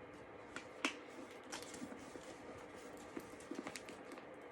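Faint handling sounds of a handbag being turned over and examined: scattered small clicks and taps, with a cluster of them about three and a half seconds in.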